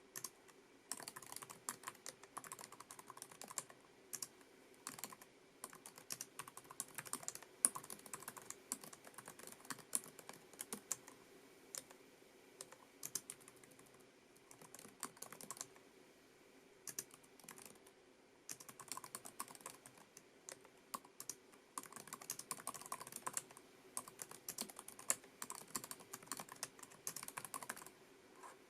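Typing on a Lenovo ThinkPad TrackPoint Keyboard II, its low-profile scissor-switch keys giving quick runs of light clicks broken by short pauses, over a faint steady hum.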